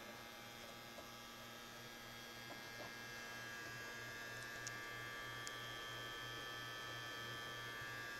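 Faint, steady electrical hum from bench electronics, with a few light clicks.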